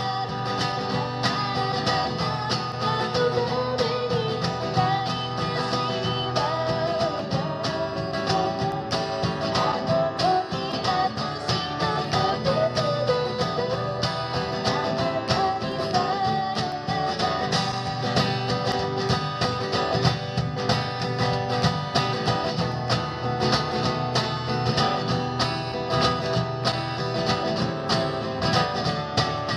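Live acoustic guitar strummed in a steady rhythm, playing a song with a melody line over the chords.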